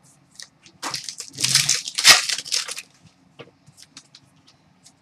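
Wrapper of a hockey trading-card pack crinkling and tearing as it is opened: a run of crackling bursts starting about a second in and lasting about two seconds, then a few light clicks and taps.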